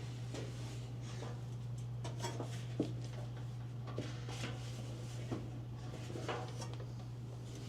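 Hands working a new ribbed drive belt into a stackable clothes dryer: scattered light clicks, taps and rubbing of parts, over a steady low hum.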